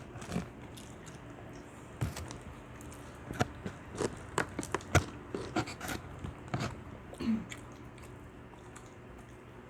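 Someone biting and chewing Jollibee fast food, with irregular crunches and clicks that come thickest in the middle.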